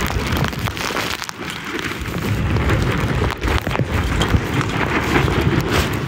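Strong, gusty wind buffeting the microphone on a small sailboat, mixed with rain and choppy water splashing. A loud, steady rush broken by irregular sharp gusts and knocks, easing briefly about a second in.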